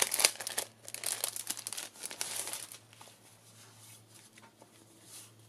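Clear plastic sleeve crinkling as a pack of paper ephemera is opened and the sheets are pulled out. The crinkling is loudest for the first three seconds, then gives way to softer rustling of paper being handled.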